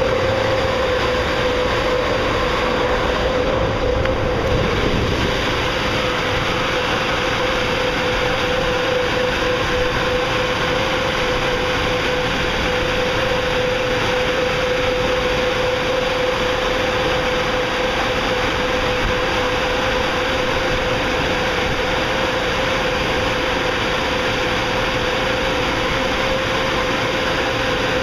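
Car wash high-velocity offboard dryers blowing: a steady, loud roar of air with a constant whine on top, drying the car at the end of the wash.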